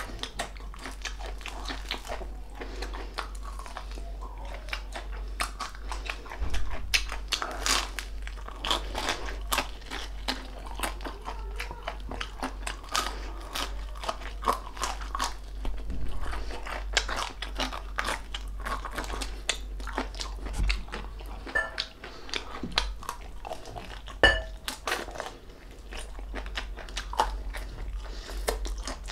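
A person biting and chewing crispy deep-fried pork knuckle skin (crispy pata): a rapid, irregular stream of crackling crunches.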